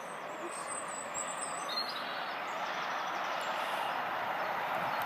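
English Electric Class 37 diesel locomotive approaching along the line, its running noise growing steadily louder as it nears.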